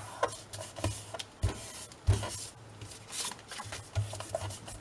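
Sheets of paper and card rustling and rubbing as they are handled and smoothed flat by hand on a craft mat, with a couple of soft knocks about a second and a half and two seconds in.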